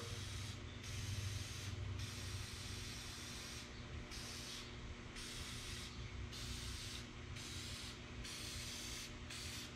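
Aerosol can of WD-40 rust-release penetrant hissing in a series of short sprays, about one a second, soaking the fasteners of an engine that has sat for a long time before it is torn down.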